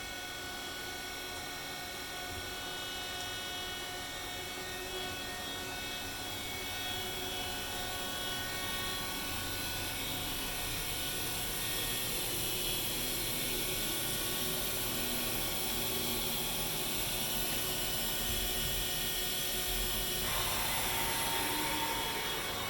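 CNC machine running steadily through a tool-height setting cycle: a mechanical whir with several high whining tones over a hiss, growing slightly louder, its tone changing about twenty seconds in.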